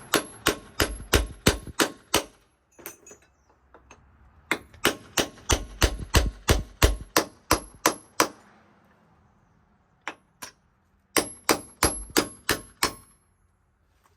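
Hand hammer striking steel in quick runs of sharp, ringing metallic blows, about four a second, with two lone strikes between the runs.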